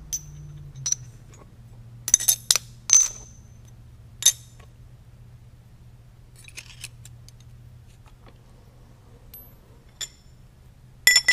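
Steel parallels clinking and ringing against each other and the jaws of a Kurt milling vise as they are set in place: scattered sharp metallic clicks, the loudest clusters about two to three seconds in and near the end, over a steady low hum.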